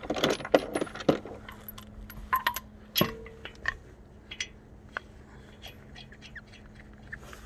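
Steel wheel nuts clinking and rattling as they are handled and spun onto the wheel studs by hand: a quick run of clicks at first, then scattered clinks, one of which rings briefly.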